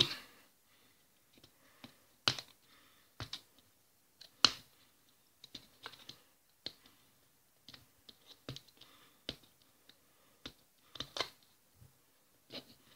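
Fingernail picking and scratching at the tape sealing a small cardboard box, making sparse, irregular sharp clicks and short scratches, the loudest about two and four and a half seconds in.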